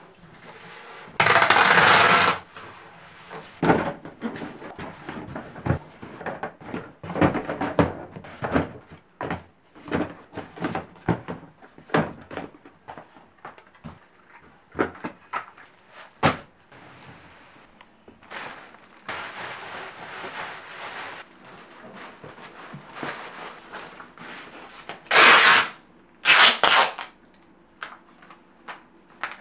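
Cardboard boxes being handled and packed, with many knocks and rustles, and packing tape pulled off a tape gun in loud bursts of about a second: once near the start and twice near the end.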